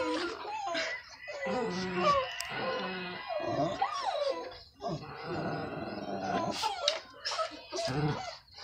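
Dog vocalizing: whining and grumbling growls in short, broken calls that rise and fall in pitch.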